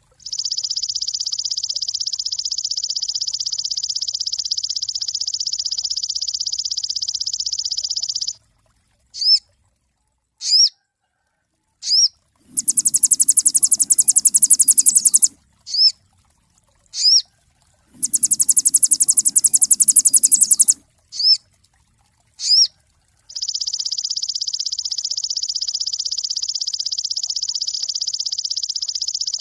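Sogon, a small songbird, singing: a long, rapid, buzzy trill lasting about eight seconds, then single sharp rising chirps, two shorter, very high rattling trills with chirps between, and the long buzzy trill again near the end.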